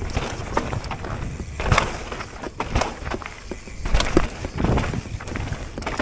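Mountain bike descending a rocky trail: tyres rolling and crunching over loose stone and bedrock, with irregular sharp clacks and rattles from the bike as it hits rocks, over a steady low rumble.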